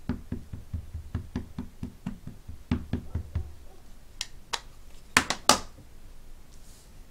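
Ink pad tapped again and again onto a rubber stamp on a clear acrylic block: a quick run of light taps, about four or five a second, for roughly three seconds. This is followed by a few sharper, louder plastic clicks as the pad is handled and set down.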